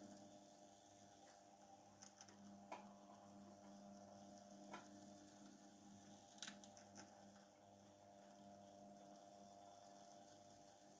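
Near silence: a faint steady electrical hum, with a few faint ticks.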